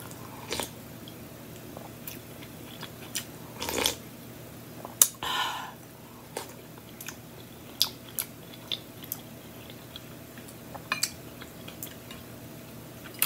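Close-up eating sounds of a person taking spoonfuls of celery and carrot soup and chewing. Scattered small clicks run through it, with a sharp louder click about five seconds in, followed by a short noisy mouth sound.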